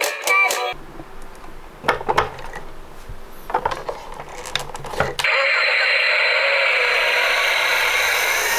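A toy's electronic sing-song tune cuts off, followed by a few sharp plastic clicks and knocks as a toy vehicle is handled. About five seconds in, a loud steady rushing noise starts abruptly.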